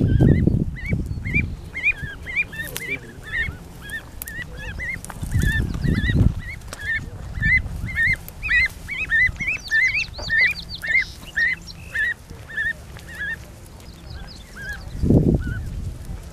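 Goslings peeping over and over, short high calls about two a second, thickest in the middle and dying away near the end: the contact calls of young geese that have fallen behind their family. A few low rumbling bursts on the microphone come at the start, about six seconds in and near the end.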